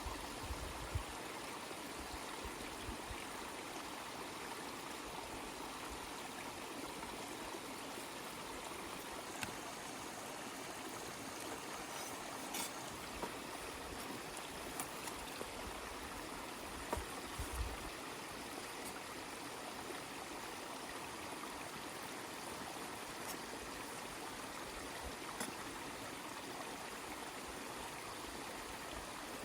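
Steady rush of a flowing stream, with a few faint clicks over it.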